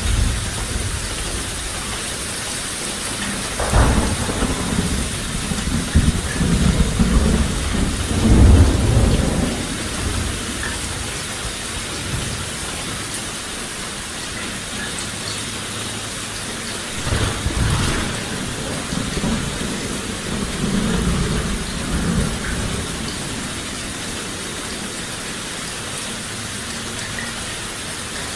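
Steady rain hissing, with several low rolls of thunder: the longest builds from about 4 to 9 seconds in, and shorter ones come about two-thirds of the way through.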